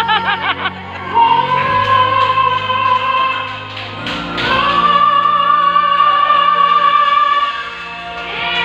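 Live singing through microphones and a PA system over backing music: a long high note held from about a second in, then a second, slightly higher note held for about three seconds.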